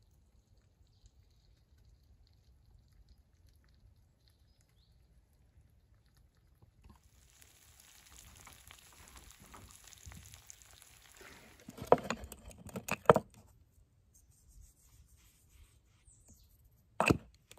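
Eggs and bacon sizzling in a frying pan, starting about seven seconds in after a very quiet stretch. A few loud knocks and scrapes of a utensil against the pan follow, then one sharp click near the end.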